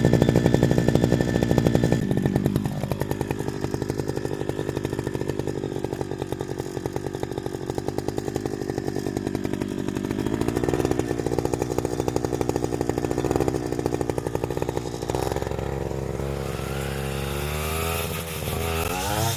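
Petrol brush cutter (grass-cutting machine) engine running at high speed while slashing. Its pitch dips and recovers a few times, and it rises near the end.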